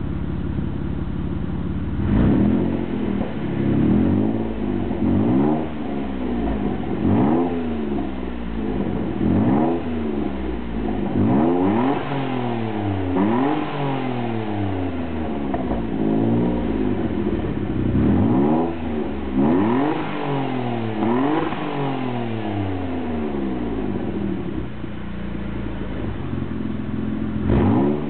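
Mitsubishi 3000GT twin-turbo's V6 through a Borla exhaust with a test-pipe, idling and blipped over and over, each rev rising sharply and falling straight back. There are about a dozen revs in quick succession, then a steady idle and one more blip near the end.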